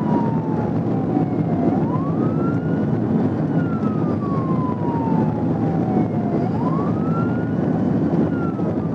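Police car siren on wail, its pitch sweeping slowly down and quickly back up about every four and a half seconds, over loud road and engine noise from the pursuing patrol car.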